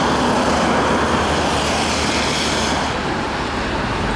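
Steady road traffic noise from a wet street: a constant hiss over a low rumble. The high hiss softens about three seconds in.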